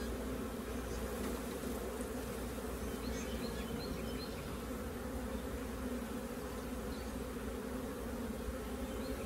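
Honeybees buzzing: a steady, even hum of many bees from a captured swarm, on a frame covered in bees and around the open hive.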